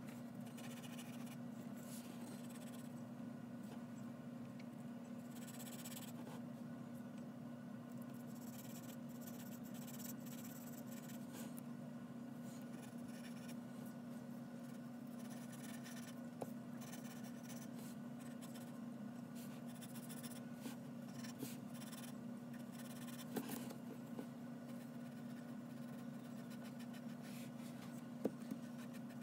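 Graphite pencil scratching across drawing paper in irregular runs of short sketching strokes, with a few light taps of the pencil on the page. A steady low hum runs underneath.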